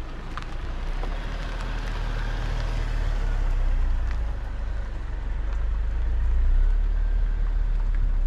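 Dark Jeep SUV driving slowly past at close range, its engine and tyres on asphalt making a low rumble that swells as it comes alongside about four seconds in.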